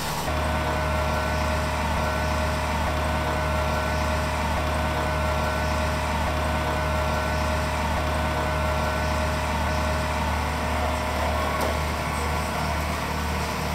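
A fishing boat's machinery running on deck: a steady, unchanging low drone with a faint steady hum above it.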